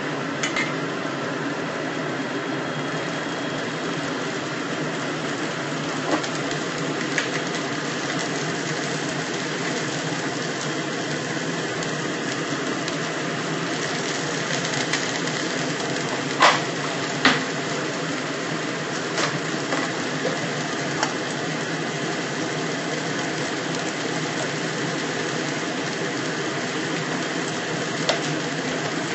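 Snap beans and ground pork sizzling and simmering in a pan with a little water: a steady hiss with scattered sharp pops, two louder ones about halfway through.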